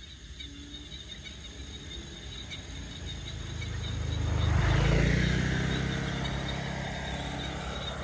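A motorbike passes close by, its engine growing louder to a peak about five seconds in, then fading as it rides away.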